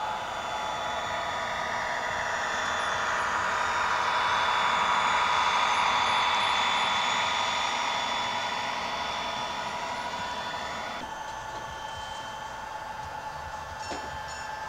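Model railroad freight train, led by a pair of model BNSF GP40 diesel locomotives, running past on the layout track: the rolling noise swells to its loudest mid-pass and then fades. About 11 seconds in the sound cuts to a quieter steady background, with a small click near the end.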